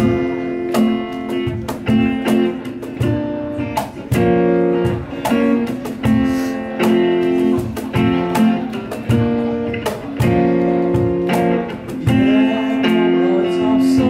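Acoustic guitar playing an instrumental break in a song, with strummed chords ringing in a steady rhythm.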